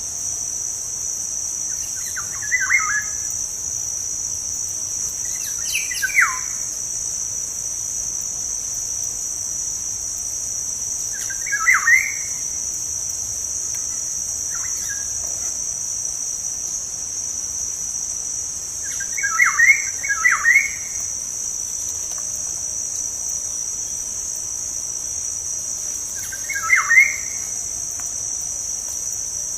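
Black-naped oriole (kepodang) giving short calls of a few quick notes each, about six times, over a steady high-pitched insect drone, like crickets.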